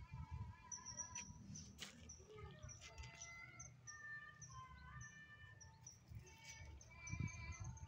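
Faint small bird chirping: short high chirps repeated about two to three times a second.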